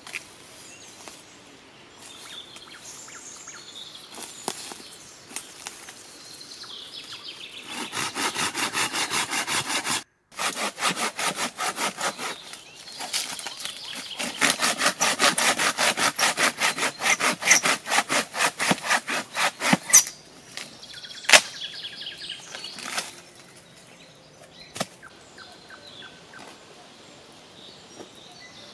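Curved hand pruning saw cutting through a dead log with quick back-and-forth strokes, about three or four a second. There is a short spell first, then a longer run of stronger strokes, followed by a sharp crack and a later knock. Birds sing faintly around it.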